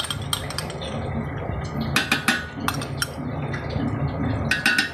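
Glass bowl and spoon clinking against a steel cooking pot as the last of the yogurt is scraped in: sharp clinks in small clusters near the start, about two seconds in and near the end, over a steady low background noise.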